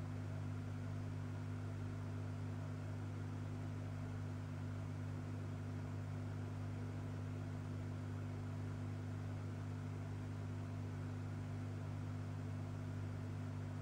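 Steady low electrical hum with a faint even hiss, unchanging throughout, typical of aquarium equipment running.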